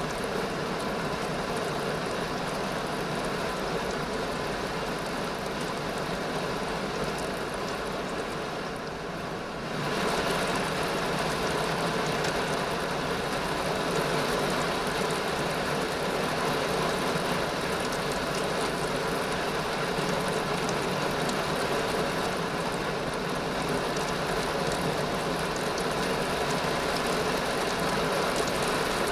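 Steady rain, an even hiss with no single drops standing out; about ten seconds in it grows louder and brighter and stays that way.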